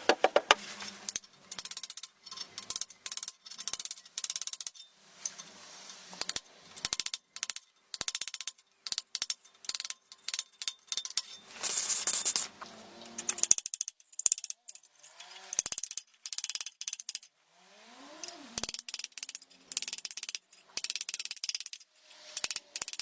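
Hand tools working on a steel vise: rapid runs of short, sharp metallic clicking, scraping and ratcheting, cut into quick bursts, with a few brief squeaks in the later part.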